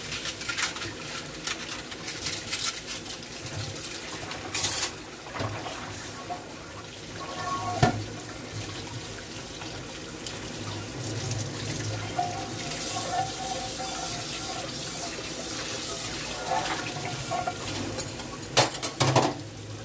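Tap water running and splashing into a stainless steel sink as a stainless pot and colander are rinsed by hand, with a few knocks and clinks of the metal cookware, the loudest near the end.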